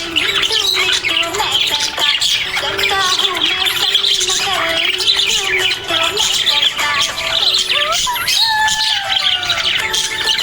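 Budgerigars chirping and warbling without a break, a dense run of many quick overlapping chirps with some squawks.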